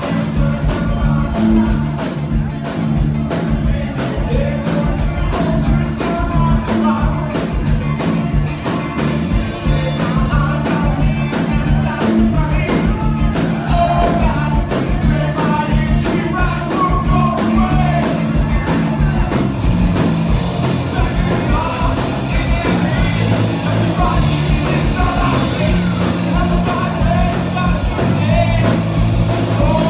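Live rock band playing: electric guitars, bass and a steady drum beat, with a singer's voice over the top.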